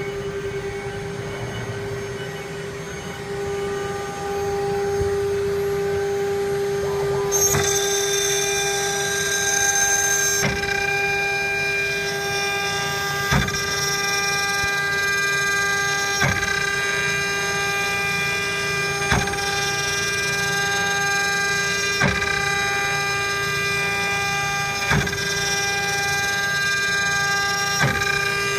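Six-spindle CNC router with a rotary axis carving a wooden cylinder: the spindle motors give a steady whine that grows louder about four to five seconds in. A short knock repeats about every three seconds, and a brief high hiss comes about seven seconds in.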